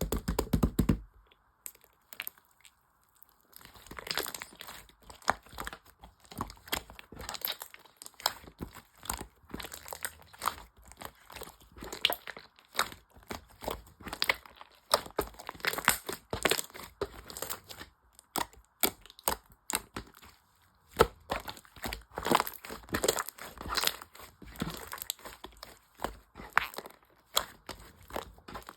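Crinkly material being crumpled and torn by hand, with many irregular sharp crackles. A short burst comes at the very start, and steady handling begins about three and a half seconds in.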